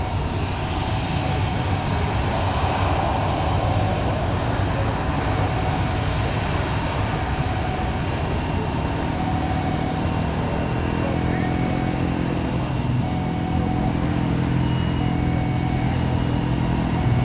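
Steady outdoor engine noise from passing vehicles or aircraft, with a low engine hum growing louder in the second half.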